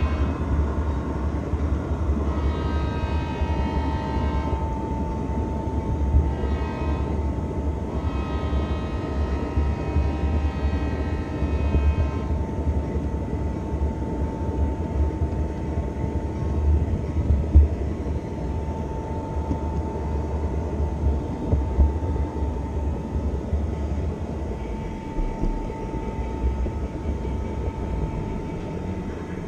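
Model train running along the layout track, heard from a camera riding on one of its cars: a steady low rumble with a steady whine, and a pitched horn-like sound in several pieces during the first twelve seconds.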